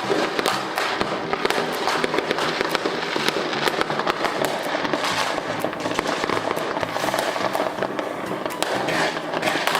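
Fireworks going off in a dense, unbroken barrage: many bangs and crackles overlapping, several every second.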